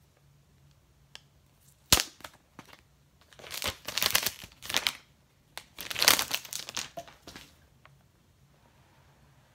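Plastic wrapping on an iPhone 11 Pro Max retail box being torn and crumpled as the box is unwrapped. There is a sharp snap about two seconds in, then two spells of crinkling.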